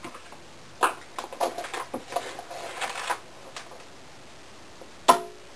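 Small clicks and scrapes of a plastic measuring spoon scooping sugar and tipping it into a bread machine pan, then a single sharper knock about five seconds in.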